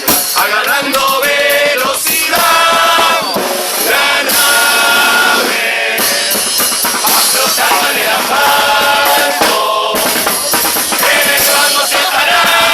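A murga chorus singing together over drums, with long held sung notes.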